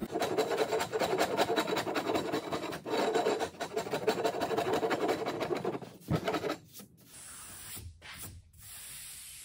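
Small hand plane shaving the edge of a thin template board in quick, short scraping strokes, taking down a bump in the curve. The strokes stop about two-thirds of the way through, leaving quieter rubbing.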